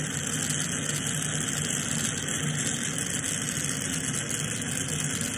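Lampworking torch flame burning with a steady hiss, over a low steady hum.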